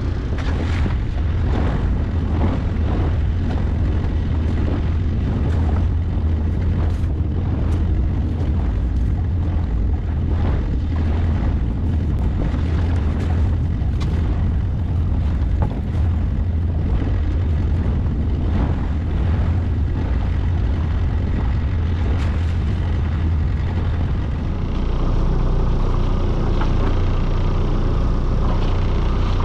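A fishing boat's engine running steadily with a low rumble, under frequent knocks and clatter of lobster pots being handled. About 25 s in, the engine sound gets louder.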